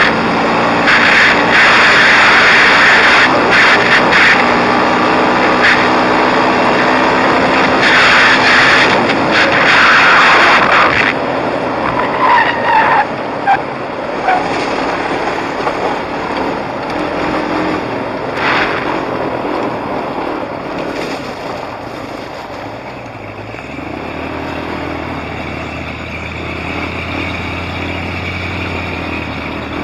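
Sport quad's engine running while riding a dirt trail, under loud rushing noise for the first ten seconds or so. After that the engine is quieter, and it settles into a steady low drone near the end.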